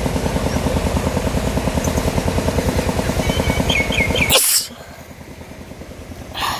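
An engine running steadily with a fast, even beat, cut off suddenly about four seconds in by a short, sharp noisy burst. A bird chirps just before the cut, and a second short noisy burst comes near the end.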